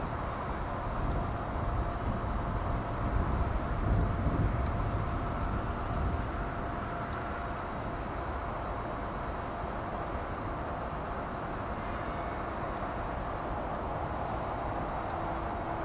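Steady shipyard background noise: a low rumble that swells and eases over the first six seconds, under a constant machinery hum with a faint steady tone.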